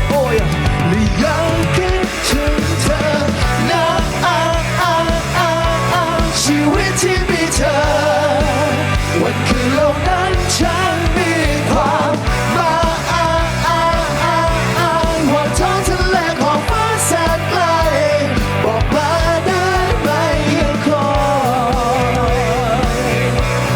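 Loud rock-style band music, with a steady bass and drum bed under a wavering lead melody line.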